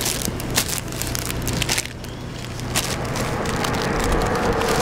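Paper wrapping crinkling and rustling as a pasty in white paper is handled and unwrapped, with many small crackles over a low steady hum.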